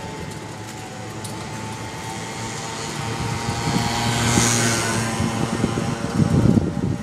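Street traffic noise heard from an open pedicab. A passing engine's sound swells to a peak about four seconds in and then fades.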